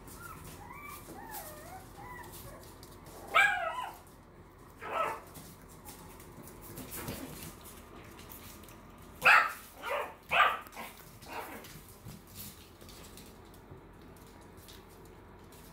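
Small puppies whining in a wavering high pitch, then giving short, high-pitched yaps. There is one loud yap about three seconds in, another a couple of seconds later, and a quick run of three near the ten-second mark.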